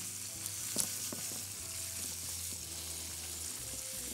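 Egyptian sausages and garlic cloves sizzling steadily in hot oil in a frying pan, with a silicone spatula stirring and lightly knocking against the pan a couple of times in the first second.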